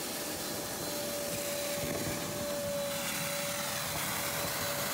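Wet/dry shop vacuum running steadily with a constant motor whine, its hose sucking rusty water out of a water heater's drain pan.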